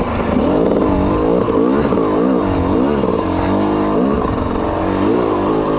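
TM EN 300 fuel-injected two-stroke single-cylinder enduro engine, revving up and down again and again as the throttle is worked through a muddy trail.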